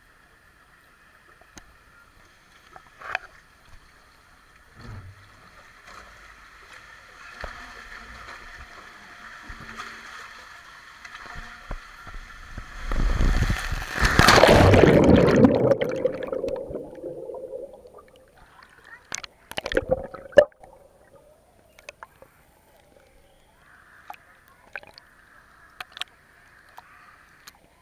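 A ride down a water slide: rushing water along the slide grows louder for several seconds and ends in a loud splash-down into the pool about halfway through. Afterwards water sloshes around the camera, with a few sharp knocks.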